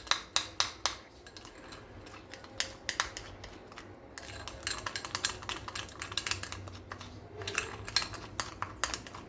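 A spoon stirring fresh yeast and sugar in a small bowl, clicking and scraping against the bowl in quick, irregular taps, several a second, as the yeast dissolves to a liquid.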